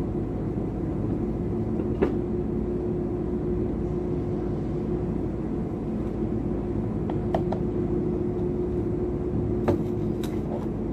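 Steady low background rumble with a constant hum, and a few light clicks and taps from a screwdriver tightening screws into the electric kettle's casing, spread out over several seconds.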